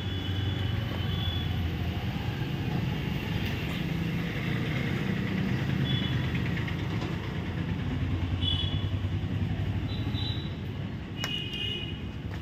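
Steady low background rumble with a few brief, high-pitched squeals, the strongest cluster about eleven seconds in.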